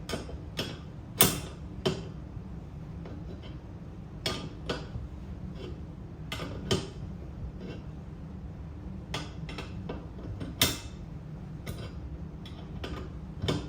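Metal clicks and knocks of a wrench working a nut onto a bolt on a steel cart frame, irregular, with a few sharper clinks, over a steady low hum.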